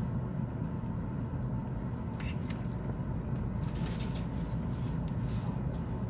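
Steady low room rumble with a few faint, small clicks and taps from handling an opened iPhone 6S and fitting parts at its bottom end.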